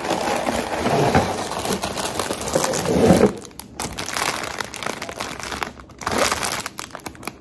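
Clear plastic packaging crinkling and rustling as it is handled. The crinkling is dense for the first three seconds or so, then lighter and on and off.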